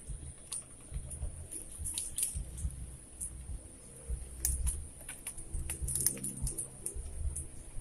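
Scattered light clicks and ticks at irregular intervals over a low, uneven rumble, with a faint steady high hiss.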